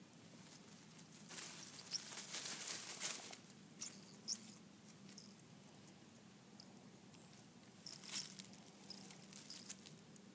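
House cat pawing and stepping through grass and leaf litter around a star-nosed mole: two bursts of rustling, a longer one about a second and a half in and a shorter one about eight seconds in, with a few short high squeaks.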